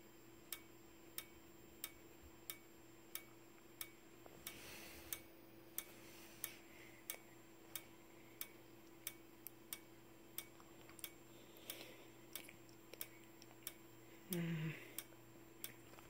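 Simplex 4903-9219 horn strobe flashing on 24 V DC with only the strobe powered: a sharp tick with each flash, evenly spaced at about three every two seconds, over a faint steady high-pitched whistle from its charging capacitor. A brief low sound comes near the end.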